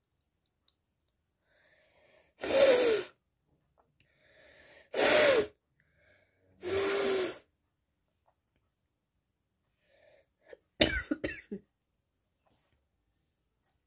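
A person sneezing three times, each sneeze a short voiced burst after a fainter breath in. Several seconds later comes a quick cluster of short, sharp bursts.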